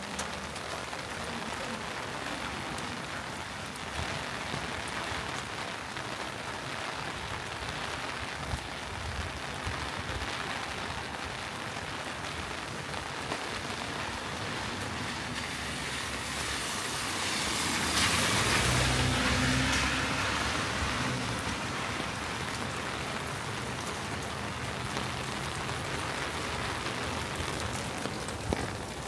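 Steady rain falling on the street. A little past the middle, a vehicle passes on the wet road, building to a louder swell for a few seconds and then fading back into the rain.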